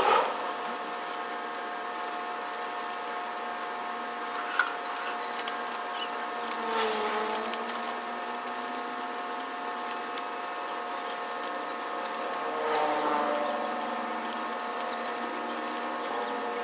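Cut heat-transfer vinyl being peeled off its carrier sheet by hand, a scratchy crinkling rustle of plastic film, over a steady hum of several tones. A single sharp click about four and a half seconds in.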